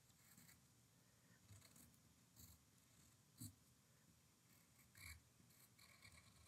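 Faint, scratchy pencil strokes on paper, tracing firmly over a drawing to transfer charcoal from its back onto the canvas; a few short strokes, the loudest about halfway through, over near silence.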